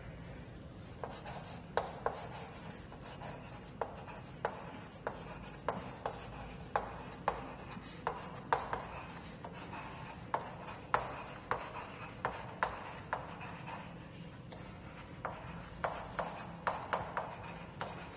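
Chalk writing on a blackboard: an irregular run of sharp taps and short scratches as letters are formed, with a brief pause about two-thirds of the way through.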